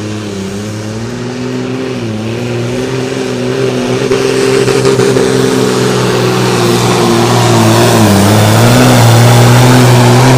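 Super Sport class pulling tractor's diesel engine running hard under full load during a pull. It gets louder over the second half, and its pitch dips briefly a couple of times, most clearly about eight seconds in.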